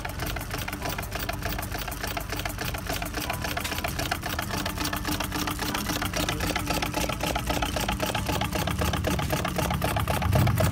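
1928 Globe half-horsepower hit-and-miss engine running, a fast, steady mechanical clatter of closely spaced clicks.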